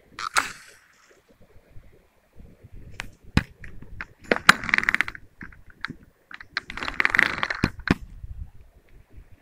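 Leafy brush rustling, with a run of sharp clicks and knocks from the rod and gear being handled among the weeds. The rustling swells twice, about halfway through and again about two seconds later.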